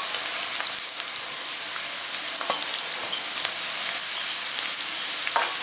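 Chopped onion and vegetables frying in hot olive oil in a pan: a steady sizzle with a few faint clicks.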